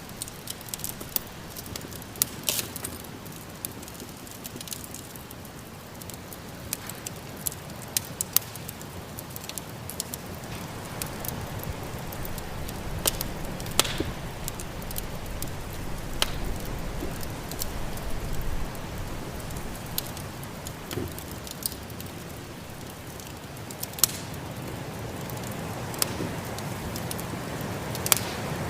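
Wood fire in a fireplace crackling, with scattered sharp pops, over a steady low rush of snowstorm wind that grows louder partway through.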